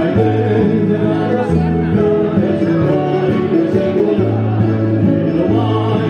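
Music with singing over sustained bass notes that change every second or so.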